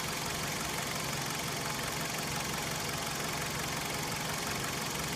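2004 Dodge Stratus 2.4-liter four-cylinder engine idling steadily. The engine has an intermittent misfire on cylinder 4, traced to an arcing spark plug wire boot.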